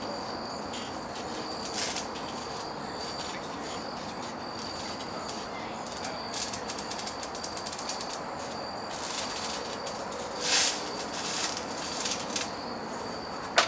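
Steady outdoor background hiss with a faint, high, steady tone that comes and goes, broken by a few brief scuffs or bumps, the loudest about ten and a half seconds in.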